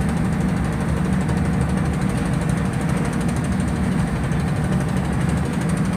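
Inboard diesel engine of a wooden fishing boat running steadily under way, a fast, even throb, over a wide hiss of wind and water.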